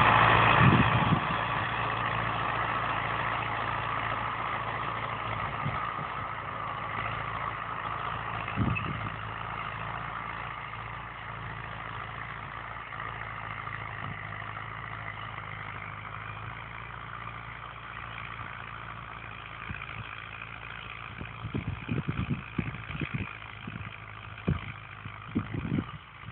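MTZ-82 tractor's four-cylinder diesel engine running steadily while pulling a cultivator, growing fainter as the tractor drives away. Scattered low thumps come in over the last few seconds.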